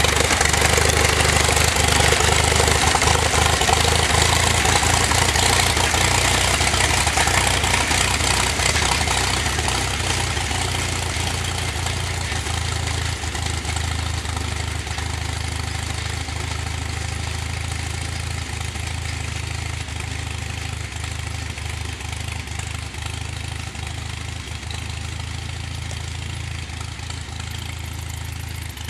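A 1937 Farmall F-20 tractor's four-cylinder engine running steadily while pulling a sickle mower, the mower's reciprocating cutter bar clattering through the grass. The sound fades gradually over the second half as the tractor moves away.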